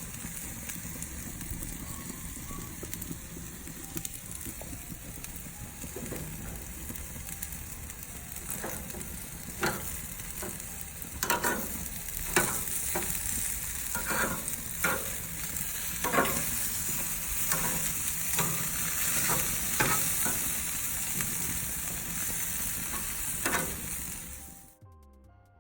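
StairMaster stepmill running with a steady hiss, and footsteps knocking on its revolving stair treads about once a second. The sound cuts off suddenly near the end.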